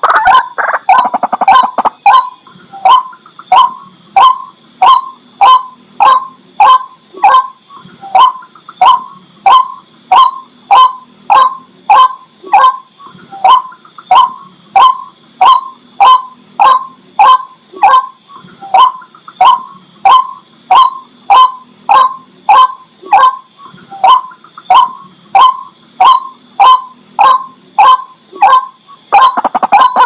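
White-breasted waterhen calling: a long, monotonous run of short, loud kwak notes at about two a second, with a denser jumble of calls in the first two seconds and again near the end.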